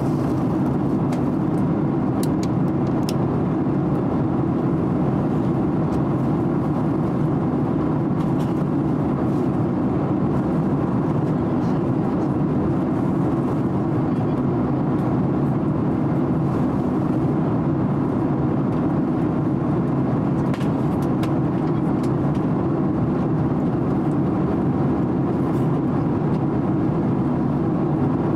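Steady cabin noise inside a Boeing 767-300 airliner in cruise: an even low roar of engines and airflow, with a few faint clicks.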